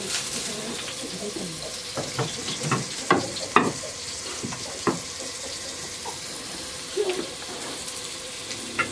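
Chapati cooking on a flat pan over a wood fire, a steady sizzle, with a run of sharp knocks and taps about two to five seconds in and a couple more later.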